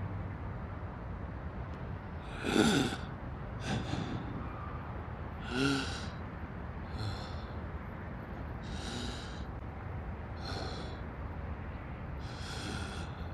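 A person breathing heavily in about seven ragged breaths, a second or two apart. The first and loudest carries a short groan that falls in pitch.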